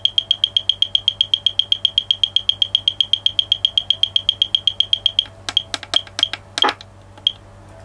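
SARK100 antenna analyzer's buzzer beeping rapidly and evenly, about ten high-pitched beeps a second, as it steps through frequencies on a sweep. About five seconds in the fast beeping stops, and a few slower, uneven beeps follow as the sweep ends on its SWR reading.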